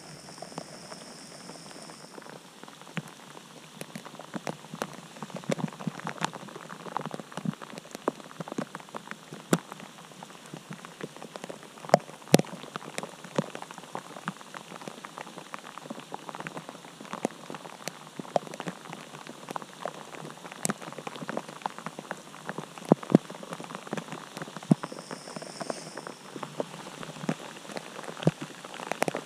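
Rain falling: many individual drops ticking sharply and irregularly over a soft, steady hiss.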